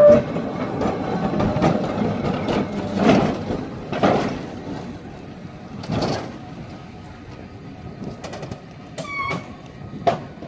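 San Francisco Powell–Hyde cable car rumbling and clanking over its rails onto the terminal turntable, then turning more quietly as the turntable swings it around. Metal clanks sound every second or two, with a short squeak near the end.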